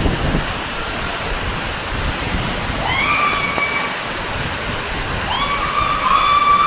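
Waterfall pouring steadily, a constant rush of falling water. Two drawn-out pitched calls rise and then hold over it, a short one about three seconds in and a longer one from about five seconds in.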